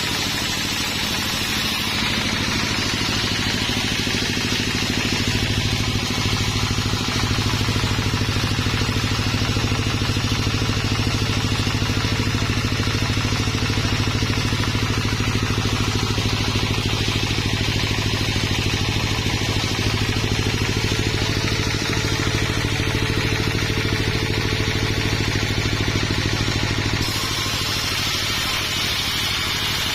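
An engine running steadily with a low hum. It gets a little louder about five seconds in and its tone changes abruptly near the end.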